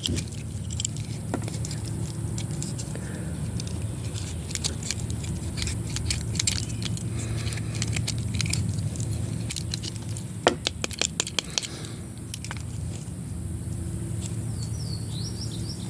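Light metallic clicks and jingles, loudest in a cluster about ten to twelve seconds in, over a steady low hum.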